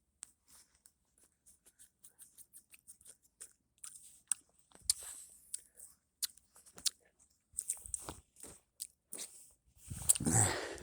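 Footsteps crunching through about a foot of fresh snow: a string of short, irregular crunches, with a louder burst near the end.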